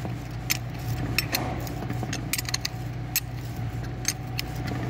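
Metal hand tools clicking and clinking against a diesel injection pump as a fitting is worked by hand: irregular sharp clicks, a few in quick succession, over a steady low hum.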